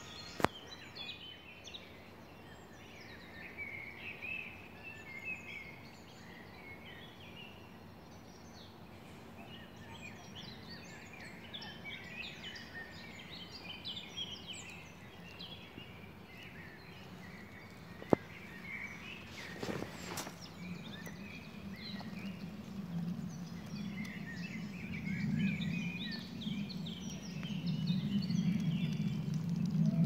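A chorus of several songbirds singing and calling at once, with short overlapping chirps and trills. Two sharp clicks stand out, one near the start and one about midway, and in the second half a low rumble rises and grows louder toward the end.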